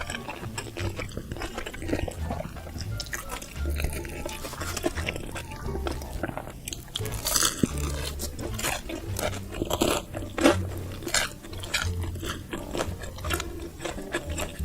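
Close-miked chewing and biting of food, with many irregular crunches and wet mouth sounds and deep low thuds as the jaw works.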